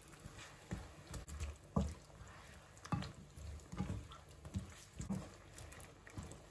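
Slices of fried steak being put into a pot of simmering sauce: a string of soft knocks and plops, irregular, roughly one every second.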